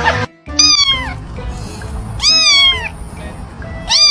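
A domestic cat meowing three times, about a second and a half apart, each meow falling in pitch at its end.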